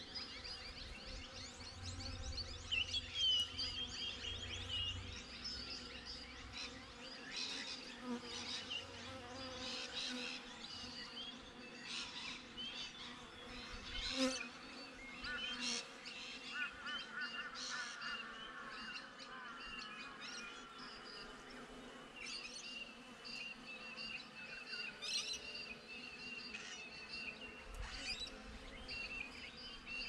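Honey bees buzzing as they fly around and past the hive entrance, with birds chirping in the background.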